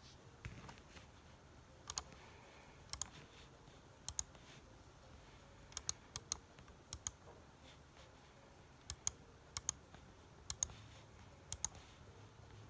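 Computer mouse clicking: sharp separate clicks every second or so, several of them quick double clicks.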